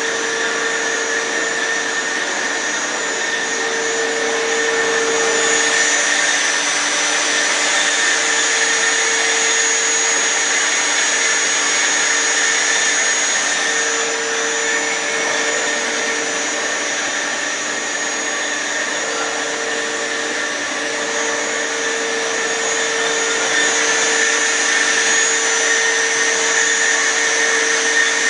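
Industrial metal-cutting band saw running: a steady mechanical whir with a hum that drops out briefly a few times and a high whine.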